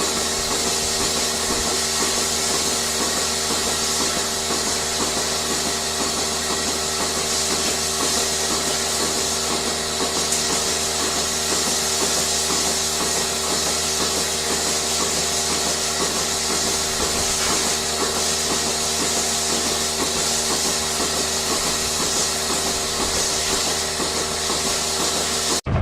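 A machine running steadily: a constant hum of several tones with a hiss over it and a fast, even pulsing beneath, cutting off abruptly near the end.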